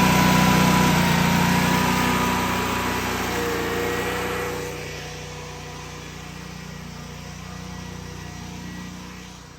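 Small portable generator engine running steadily, its level dropping by about half a second before the halfway mark and staying lower after that.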